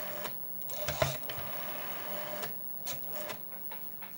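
Rotary telephone dial being pulled round and let go, whirring back under its governor as it pulse-dials the BBS number; a longer return starts with a click about a second in, and a few more clicks follow near the end.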